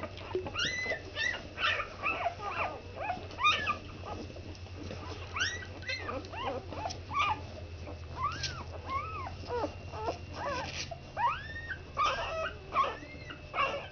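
Newborn puppies whimpering and squeaking while nursing: many short, high calls that rise and fall, overlapping throughout. A steady low hum runs underneath.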